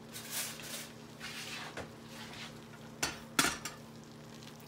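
Cookware and dishes clattering as they are handled, likely the cast-iron skillet holding the peach pie. There is a rustle near the start, then two sharp knocks about three seconds in.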